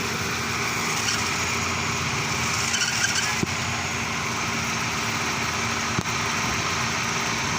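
Car engine idling steadily with the power steering belt and pump running, and a brief faint high squeal about three seconds in.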